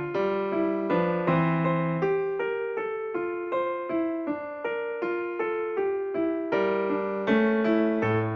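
Background music: a piano-type keyboard playing a melody in a steady run of struck notes that ring and fade.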